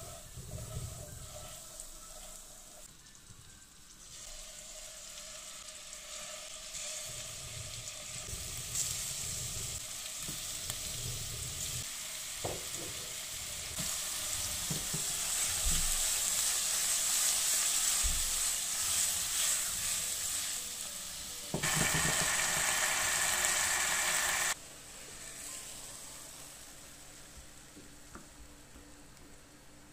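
Butter melting and then minced-lamb meatballs frying in it in a pan: a sizzle that builds steadily, with a few light knocks in the middle. Near the end a louder stretch of sizzling stops abruptly.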